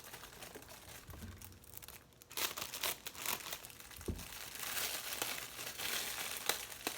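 Crinkly plastic packaging of a squishy toy being handled, crinkling and crackling, quieter at first and busier from about two and a half seconds in. A soft thump about halfway through.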